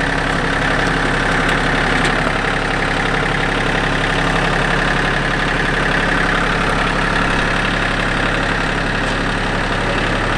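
John Deere compact tractor's engine running steadily while its front loader bucket works the ground close by, a loud, even engine hum with a deep drone underneath.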